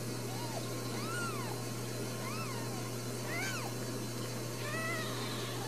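Newborn Ragdoll kittens mewing: five short, high cries that rise and fall in pitch, about one a second, over a steady low hum.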